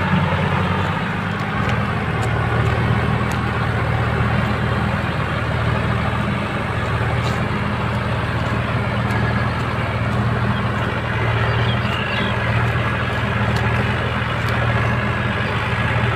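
Two diesel tractor engines, a Swaraj 735 FE and a Mahindra, running hard under full load as they strain against each other in a tug-of-war, the Swaraj also dragging a heavily loaded trolley. A steady low drone that holds without a break, its lowest note shifting about a second in.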